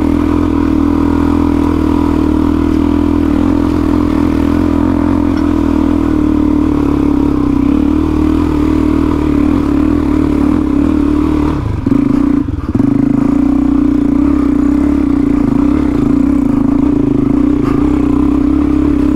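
Single-cylinder four-stroke trail bike engine running under load at steady revs on a rough climb, with some clatter. The engine note briefly drops and breaks off about twelve seconds in, then picks up again.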